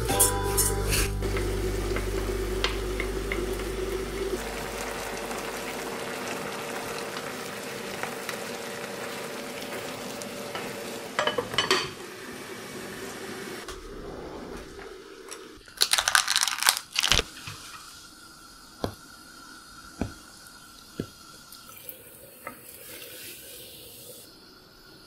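Millet and rice being washed by hand in a pot of water, swishing and splashing, then clattering of a pot and utensils in two short clusters near the middle, and a few sharp clicks toward the end.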